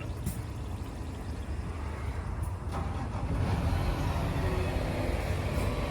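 Tractor engine running steadily at low revs while it backs up, a low rumble that gets a little louder about halfway through.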